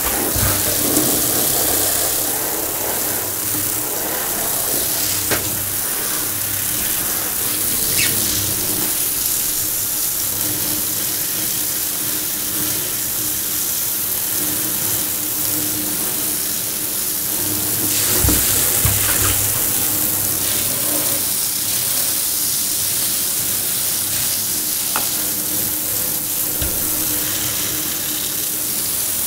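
Handheld shower head spraying a steady hiss of water onto boots and the bathtub floor, with a few dull knocks about two-thirds of the way through.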